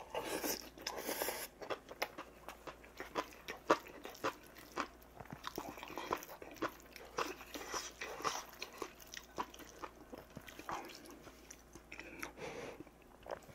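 Close-up eating sounds: a person chewing mouthfuls of rice and stew, with a spoon clinking and scraping against a stainless steel bowl in many short, irregular clicks.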